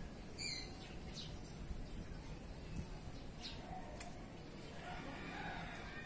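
Wind buffeting the microphone with a steady low rumble, with a few short, high bird chirps scattered through it and faint calls near the end.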